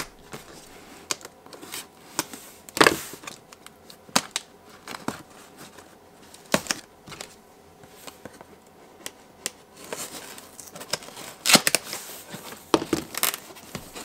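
A pocket knife slitting the packing tape on a cardboard box, then the cardboard flaps being pulled open: irregular scrapes, taps and tearing, busier near the end.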